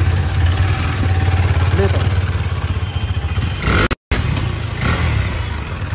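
Single-cylinder KTM RC 390 engine running steadily. About four seconds in there is a brief cut, then a motorcycle engine is heard again as the bike rides off.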